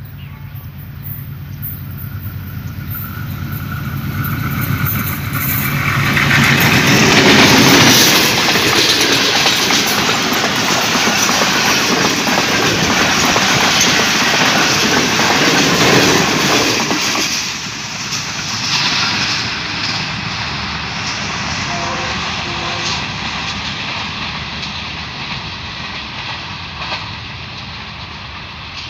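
Pakistan Railways passenger train hauled by a GEU-20 diesel-electric locomotive approaching, passing close by and receding. It builds over the first several seconds, is loudest for about ten seconds as the coaches run past with the wheels clattering over the rails, then fades away.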